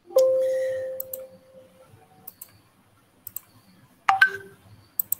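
Computer notification chime that rings out and fades over about two seconds, then a few mouse clicks and a second, shorter tone about four seconds in: a Google Meet alert that someone is asking to join the call.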